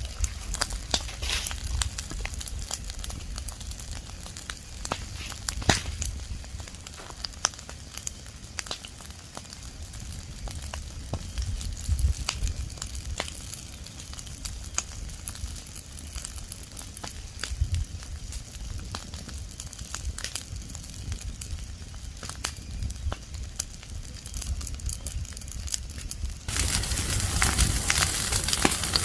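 Open fire of dry leaves and branches burning, crackling with irregular sharp pops and snaps. About 26 seconds in, a louder steady hiss suddenly comes in under the crackle.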